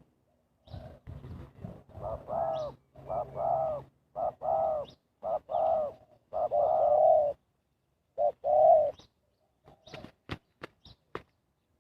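Spotted dove cooing, a run of repeated coos, then a few sharp clicks near the end.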